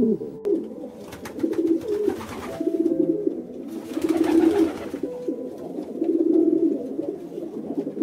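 Pied imperial pigeon cooing: a series of low, pulsing coos, repeated about once a second.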